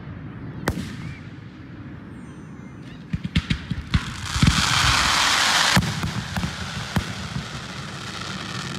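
Fireworks display: a scatter of sharp bangs from bursting shells, with a dense crackling burst lasting about two seconds in the middle, the loudest part, followed by a few more bangs.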